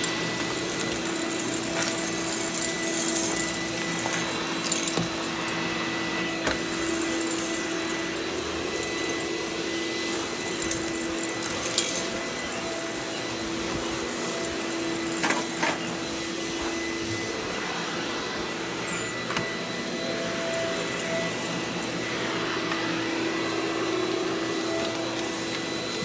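Vacuum cleaner running steadily on carpet, a constant motor hum and whine over the rush of air, with a few light knocks.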